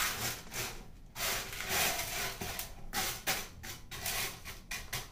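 Small aquarium gravel crunching and scraping as a hand pushes an artificial plant into it inside a clear plastic tank, in a run of short, irregular scratchy strokes.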